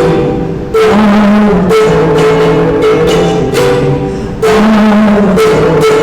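Instrumental music with sustained notes, a moving bass line and a regular beat.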